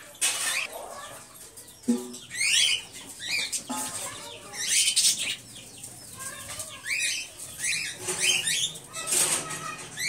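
Budgerigars chirping in many short, quick calls, with wings flapping now and then.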